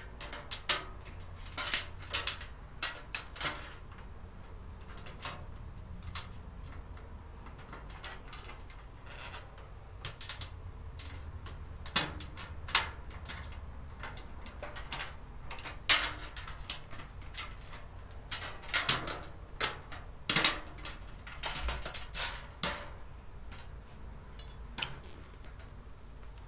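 Irregular clicks, clinks and knocks of storage-cart parts and screws being handled and fitted together during assembly. There is a sparser stretch for several seconds before the middle, then the clicks come thicker again.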